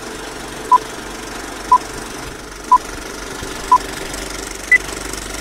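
Old film countdown-leader sound effect: a steady film-projector running clatter with a short beep once a second, four at one pitch and then a higher-pitched beep near the end.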